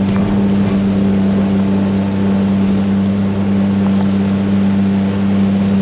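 Yamaha outboard jet motor on an inflatable boat running at a steady speed, a constant droning note, over a haze of wind and water noise.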